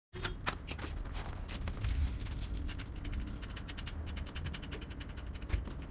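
Clicks, ticks and rattles of a child's bicycle rear wheel and plastic chain guard being handled and fitted into the frame, with a run of fast even ticks in the middle and a sharp knock near the start and another near the end.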